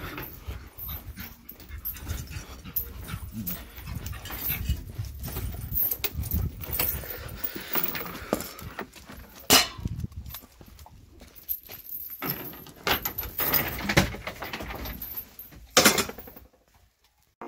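Dog sounds amid a low uneven rumble, broken by scattered sharp knocks, the loudest about two-thirds of the way in and again near the end.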